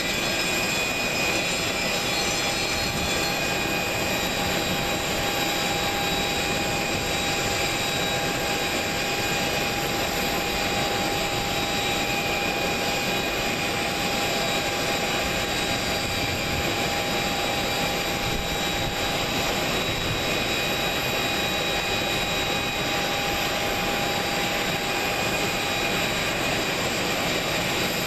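Steady whine and rush of aircraft jet turbines: an even, unbroken noise with several high, constant whistling tones over it.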